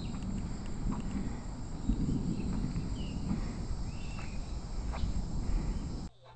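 Outdoor background noise: a steady low rumble with a faint high steady hum, a few faint clicks and short chirps, cut off abruptly near the end.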